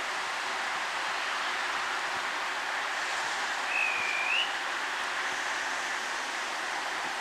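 Steady hiss of a Rhaetian Railway Ge 4/4 II electric locomotive's cooling blowers while its train stands at the platform. One brief high whistle sounds about four seconds in, rising slightly at its end.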